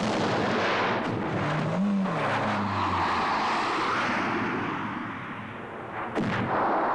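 Vehicle engine noise with a dense rushing sound, briefly rising and falling in pitch about two seconds in, easing off around five seconds and coming back sharply near the end.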